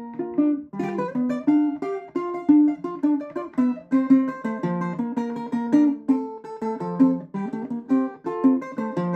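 Venezuelan cuatro played solo, fingerpicking a flowing melody over accompanying chords, several plucked notes a second.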